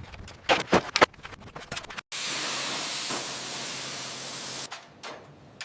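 A few sharp knocks, then a spray gun hissing steadily for about two and a half seconds before cutting off abruptly.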